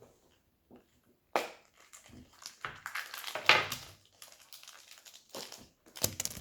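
Toy blind-pack packaging being handled and opened, with irregular crinkling and crushing rustles that are loudest about one and a half and three and a half seconds in.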